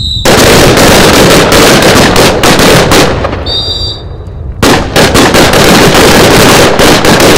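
Several semi-automatic rifles firing at once from a firing line in rapid, overlapping shots, in two volleys of about three seconds each with a short pause between them. A brief high tone sounds just before each volley.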